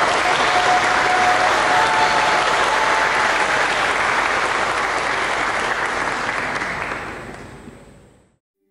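A congregation clapping hands in sustained applause for a newly married couple. It fades out over the last two seconds.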